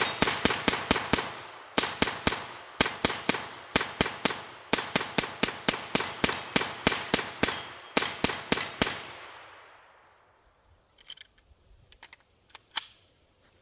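A .22 LR Hammerli Tac R1 semi-automatic rifle fired rapidly, about three shots a second in short strings with brief pauses, emptying the magazine over about nine seconds. A few faint small clicks follow near the end.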